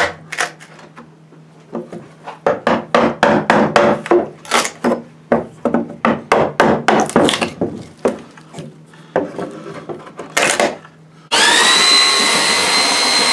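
A mallet knocking repeatedly on wood, irregular sharp blows that drive the cleats off a plank lid. About eleven seconds in, a belt sander starts suddenly and runs steadily on the wooden lid, its motor whine rising briefly as it spins up and then holding.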